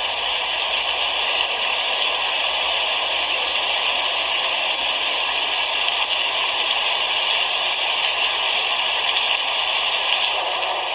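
Steady rain falling, a dense, even hiss of drops with no let-up.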